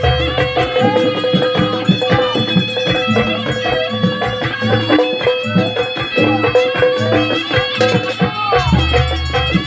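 Live jaranan music: a reedy, shawm-like melody over a steady drone, with drums and low gong strokes beating underneath.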